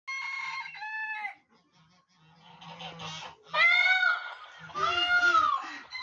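Indian peafowl calling: a series of calls, each one arching up and then down in pitch. A short two-note call comes at the start, then after a pause two longer calls about three and a half and five seconds in.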